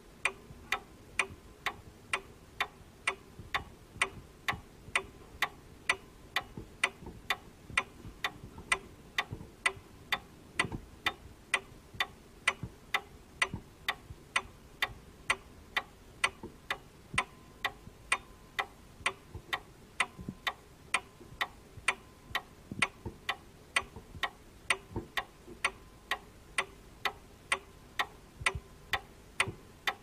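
Clock ticking, the tick-tock of its second hand: sharp, even ticks at about two a second.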